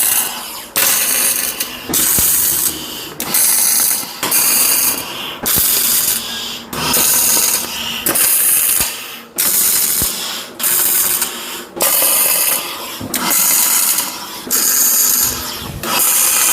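Electric arc welder laying a run of short tack welds on steel: about a dozen crackling bursts, each under a second, with brief pauses between them.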